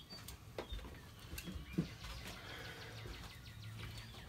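Faint outdoor ambience with small birds chirping, a low steady hum and a few light knocks, the sharpest about two seconds in.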